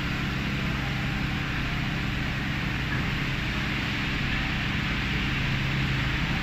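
Automatic tunnel car wash running: a steady hiss of water spray over a low, even machine hum, getting slightly louder near the end.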